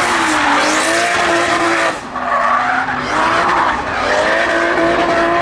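Drift cars sliding sideways under power: an engine held at high revs over a continuous tyre screech. The sound changes abruptly about two seconds in, where a second car takes over with the same engine note and tyre screech.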